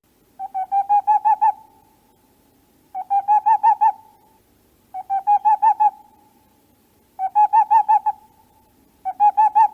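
Owl calling in five short bouts, each a quick run of about seven hoots lasting about a second, repeating every two seconds or so.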